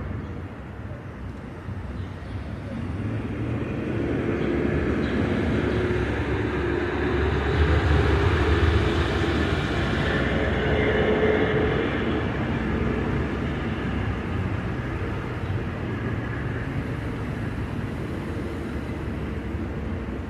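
A vehicle passing by: a low rumble that swells gradually to its loudest about halfway through, then slowly eases off.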